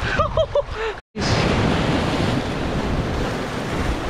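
Ocean surf washing and breaking over a shoreline of rounded boulders, a steady rushing wash with wind buffeting the microphone. A brief dropout to silence comes about a second in.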